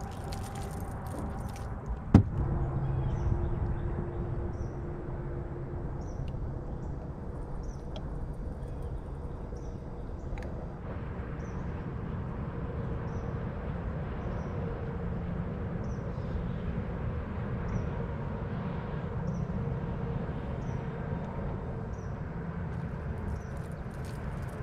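Steady low wind and water noise on an open fishing boat, with one sharp click about two seconds in and a faint high chirp repeating about every three-quarters of a second.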